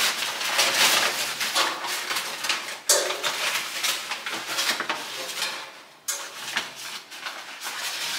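Leaves of a tall potted plant rustling as it is handled, with light clinks and knocks against a metal plant stand; one sharp knock about three seconds in.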